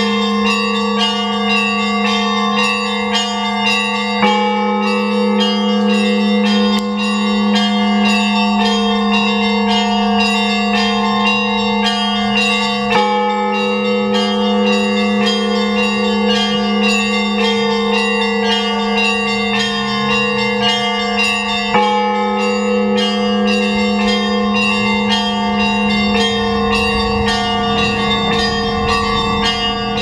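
Russian Orthodox church bells ringing: small bells struck in a quick, continuous rhythm over the steady hum of larger, deeper bells, the pattern shifting every few seconds.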